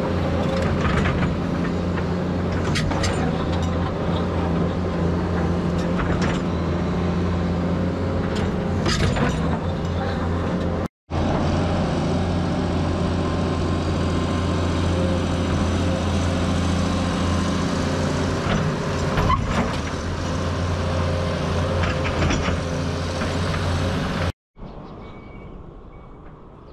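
A heavy diesel excavator engine runs steadily under load, with occasional metallic clanks and knocks from digging. The sound cuts out briefly twice, and after the second break near the end it comes back much quieter.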